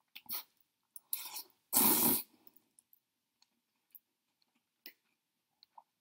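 A person slurping instant noodles off a fork: a few short slurps, the loudest about two seconds in, followed by faint small clicks.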